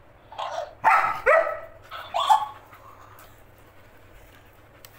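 Labrador barking several times in the first two and a half seconds at a talking cactus toy.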